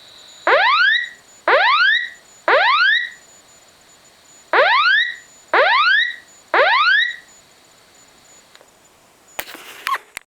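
Japanese fire alarm sounding its warning tone: two groups of three rising whoops, about one a second, with a pause between the groups. A short clatter with clicks near the end.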